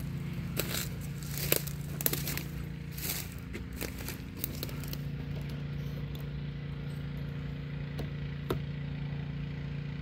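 Sharp clicks, crackles and scrapes of a bee box being handled and opened, thinning out about halfway through. Under them runs a steady low hum.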